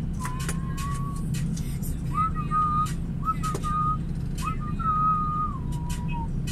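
A person whistling a slow tune of held notes with short upward slides, over the steady low hum of an idling truck engine heard from inside the cab. There are a few scattered clicks.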